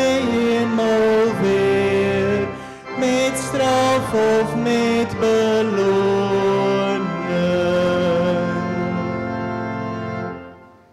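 Congregation singing the closing lines of a hymn in long, held phrases, with a short break between phrases; the final note is held and fades out just before the end.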